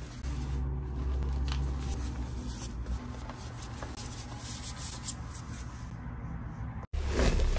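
Pink gym chalk being crushed and rubbed between fingers into loose powder: soft crunching and rubbing, with a low steady hum under it. Near the end the sound drops out for an instant, then louder crunching starts.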